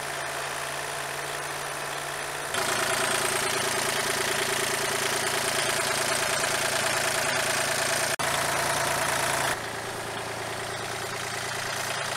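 A steady machine hum. About two and a half seconds in, a louder hissing layer cuts in abruptly, and it cuts out again near the end.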